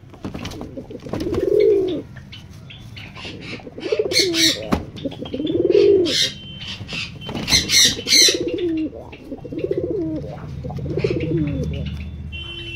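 Fancy mukhi pigeons cooing: about seven separate coos, each rising and then falling in pitch, over a low steady rumble. A few brief bursts of wing flapping come about four and eight seconds in.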